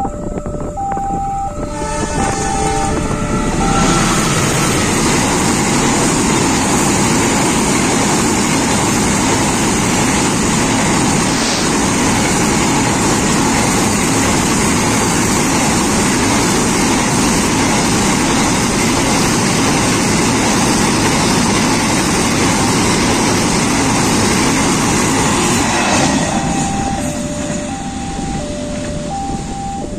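A two-tone level-crossing warning alarm beeps, and a horn sounds about two seconds in. Then a diesel-hauled train of empty flat freight wagons passes close by: a steady, loud rumble of wheels on rail for about twenty seconds. The rumble drops away near the end, leaving the alternating alarm beeps.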